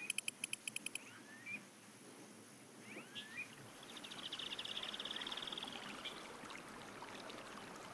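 Faint outdoor ambience over a soft hiss of running water: a few short rising bird chirps, and a fast buzzy trill a few seconds in. A rapid high ticking dies away in the first second.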